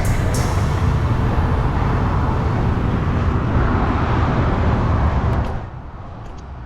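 Steady rush of wind buffeting the microphone, with road noise, while a mountain bike is ridden fast; it drops away suddenly about five and a half seconds in.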